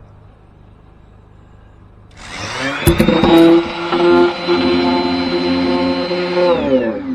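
Electric sander switched on: its motor spins up to a steady, loud whine, runs for about four seconds, then winds down near the end.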